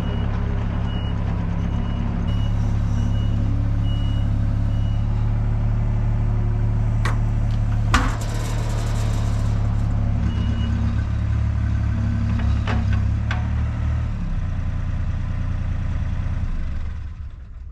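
Diesel engine of heavy equipment running steadily while its reversing alarm beeps about twice a second for the first few seconds, and briefly again later. There is a loud metallic bang about 8 s in, with a few lighter knocks around it. The engine sound drops near 14 s and falls away just before the end.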